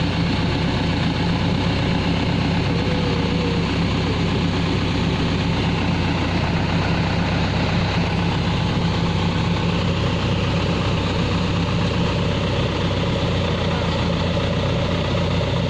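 Backhoe loader's diesel engine running steadily at idle, a constant low hum.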